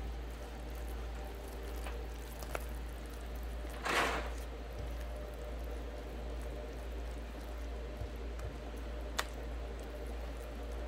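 Silicone spatula stirring thick waffle batter in a plastic mixing bowl: soft wet squishing, with one louder swish about four seconds in and a couple of light ticks of the spatula against the bowl.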